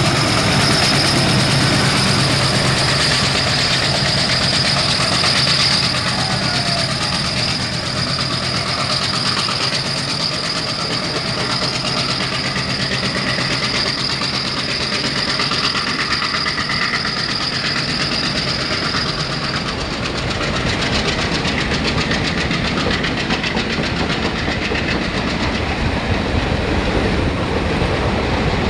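Twin ALCO diesel locomotives passing at speed, their engine drone strong in the first few seconds and a high whine fading out about two-thirds of the way through. The passenger coaches follow, rolling by with wheels clattering over the rail joints.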